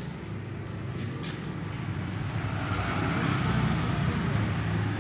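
A vehicle engine running with a steady low hum, growing louder to a peak about three and a half seconds in, then easing slightly.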